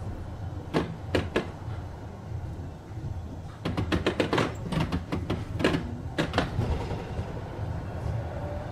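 Düwag GT6Z tram standing at a stop with a low steady hum, a few sharp knocks about a second in, then a clattering run of knocks and rattles from its doors. Near the end a faint rising whine starts as the tram begins to move off.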